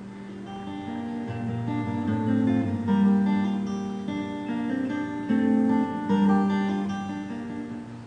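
Instrumental background music of slow chords, each held for a second or more before the next.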